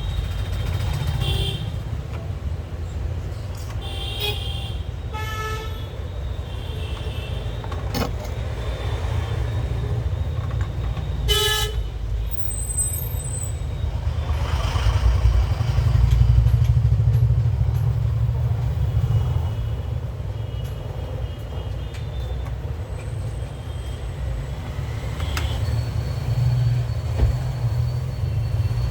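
Road traffic rumbling, with short vehicle horn toots about five and eleven seconds in, and a heavier vehicle passing loudest around the middle.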